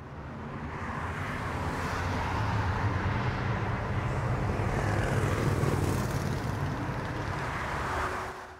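Twin-engine jet airliner landing: a steady jet-engine rumble and hiss that swells to its loudest midway, eases slightly, then cuts off sharply near the end.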